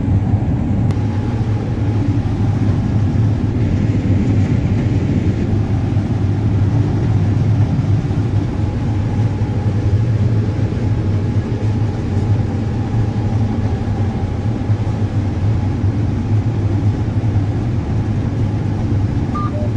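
Combine harvester running steadily while harvesting corn: an even, loud low drone with no change in pace.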